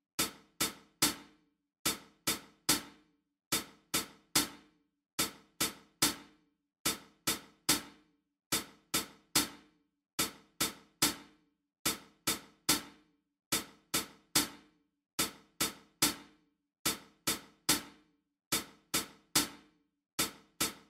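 Rhythmic practice track of sharp percussive strokes in groups of three, each group followed by a one-beat rest, about every 1.7 seconds. The third stroke of each group is the loudest, like an accented beat.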